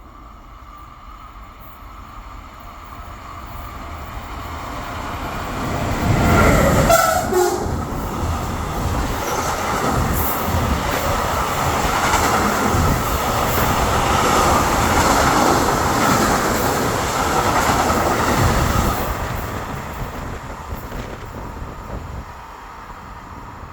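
A freight train passing through a station. It grows louder on the approach, then a horn sounds about six seconds in, falling in pitch as the locomotive goes by. The wagons roll past for about twelve seconds before the sound fades away.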